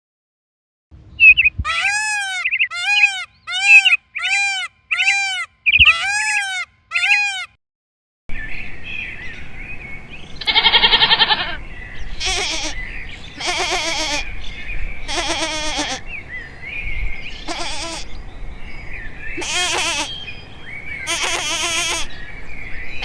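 Animal calls from two separate clips. First comes a run of about eight short, arched, whistle-like calls in quick succession. After a brief gap, a series of quavering, bleat-like calls follows, each a second or so apart, over a steady background hiss.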